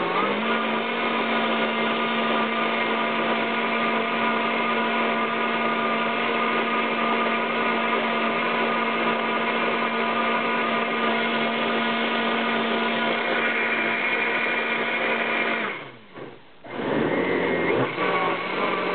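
OMNI 5 high-powered blender's 3-horsepower motor running steadily while it blends apples, carrots, almonds and goji berries into a thick sauce, its hum stepping up slightly in pitch at the start. About three-quarters of the way through, the motor spins down and stops for under a second, then starts up again.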